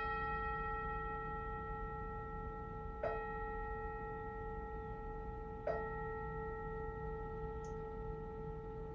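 Singing bowl struck three times, at the very start, about 3 s in and about 5.7 s in. Each strike sets off a sustained ring of several steady tones that overlaps the next.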